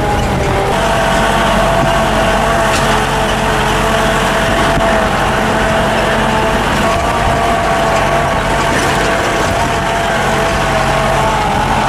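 Vehicle engine running steadily, heard from on board as the vehicle drives along a dirt hill road.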